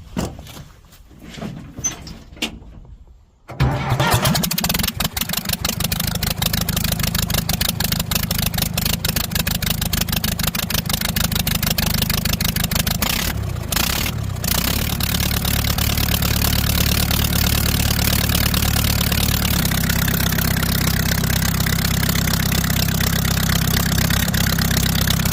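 John Deere 310A backhoe's 3.6-litre engine starting about three and a half seconds in, then running loudly with its exhaust manifold off and the exhaust ports open to the air. It runs a little unevenly, which the owner puts down to cylinder 3 being a little weird.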